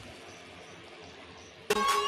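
A low, fading hiss, then electronic dance music with a steady beat cuts in abruptly near the end.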